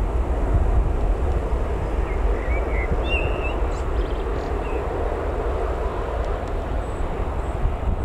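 Steady rumble of an Embraer E190 jet's two turbofan engines as the airliner rolls away down the runway on departure.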